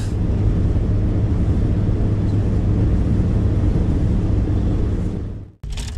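Bass boat's outboard motor running steadily with a low, even hum. It fades about five seconds in and cuts off abruptly.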